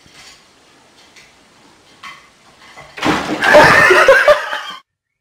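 A person laughing loudly for just under two seconds, starting about three seconds in and cut off abruptly; before it, only a few faint knocks.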